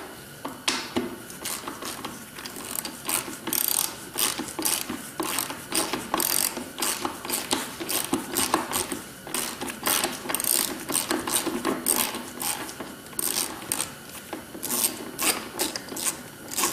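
Ratchet wrench clicking in quick runs as a 10 mm side-panel bolt is worked loose.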